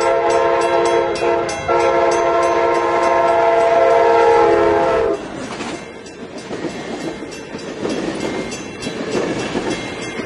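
Diesel locomotive air horn of an Amtrak California bilevel passenger train sounding for a grade crossing: a steady multi-note chord with a brief break about one and a half seconds in, then held again until it cuts off about five seconds in. After that the passenger cars rumble and clatter past over the rails.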